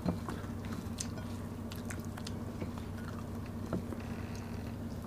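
Close-miked chewing of rice and fried pompano eaten by hand, with scattered small mouth clicks and smacks over a steady low hum.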